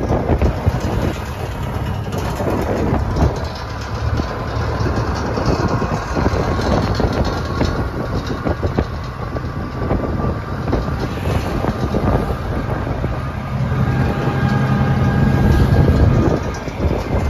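A vehicle on the road, with its engine running under a steady rumble and rattle of travel. The engine grows louder for a couple of seconds near the end.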